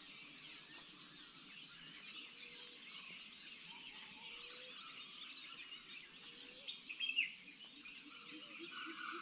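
Faint dusk chorus of many birds and other wildlife chirping and calling at once from shola forest. A short low call repeats about every two seconds, and one louder call with a falling pitch comes about seven seconds in.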